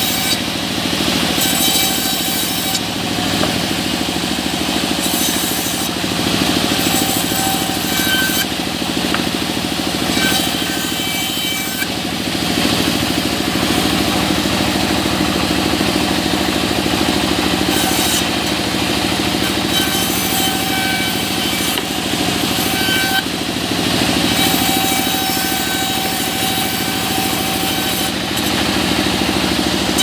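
Sawmill band saw running steadily while mahogany boards are fed through it, the blade cutting wood, with the high cutting noise coming and going between passes.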